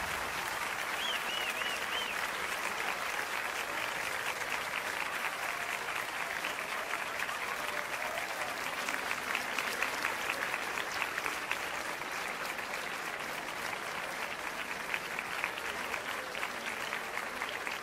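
Steady applause from a crowd, with a few short high chirps about a second in.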